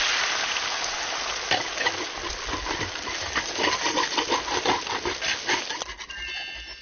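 Beaten egg frying in hot oil in a large wok, sizzling with a loud, even hiss and popping crackles, dying down near the end.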